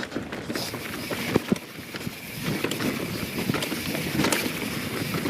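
Mountain bike (YT Jeffsy 27) rolling down a dirt singletrack: steady tyre and trail noise with rattles and sharp knocks as it goes over roots and rocks, two loud knocks close together about a second and a half in, and wind on the microphone.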